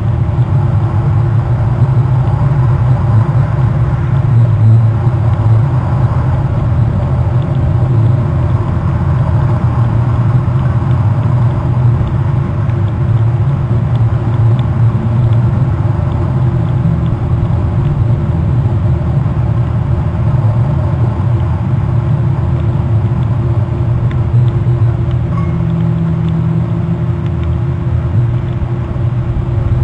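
Steady, loud low rumble with a faint constant hum running through it, with no clear bird calls standing out.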